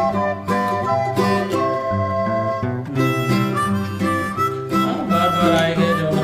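Upbeat instrumental background music with harmonica and guitar over a steady bass beat.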